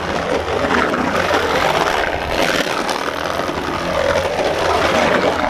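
Steady rush of wind over the microphone of a camera moving fast through a concrete skatepark bowl, over the low rumble of wheels rolling on concrete.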